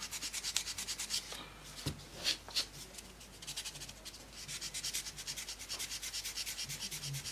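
Sanding sponge rubbed in quick back-and-forth strokes over a primed plastic scale-model part, knocking down small edges and a seam in the primer. The strokes ease off for a couple of seconds near the middle, with a few sharper scrapes, then pick up steadily again.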